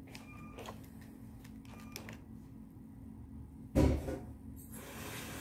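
Faint clicking of a toy LEGO train running off over its plastic track, then a single loud thump nearly four seconds in.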